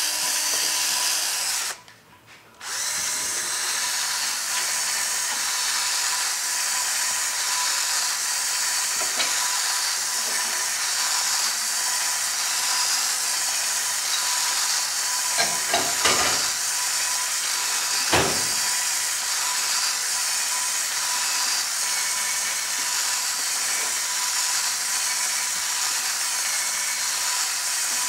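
Handheld drill spinning a diamond hone inside a newly installed valve guide of a Pontiac 455 cylinder head, honing the tight guide out to the valve stem's oil clearance. It runs steadily, stops for a moment about two seconds in, then runs on, with a few sharp knocks a little past halfway.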